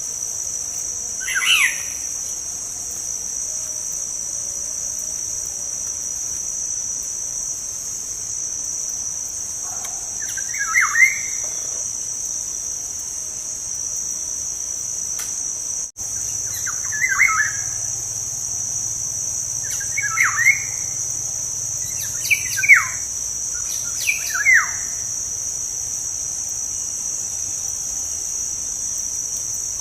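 Black-naped oriole (kepodang) giving short whistled calls, six in all at uneven intervals, over a steady high-pitched chirring of crickets.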